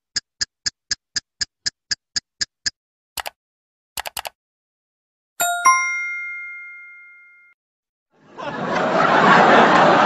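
A run of separate sound effects: about a dozen quick high ticks at roughly four a second, then a few short clicks. Next comes a bright bell-like ding that rings out for about two seconds. From about eight seconds in, a crowd chatters.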